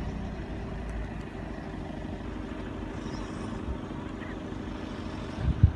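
A steady low engine hum, with loud low rumbling thumps starting near the end.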